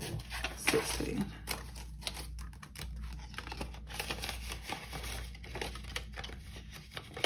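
Paper banknotes being handled while cash is counted and sorted: rustling and crinkling with quick irregular flicks and clicks of bills.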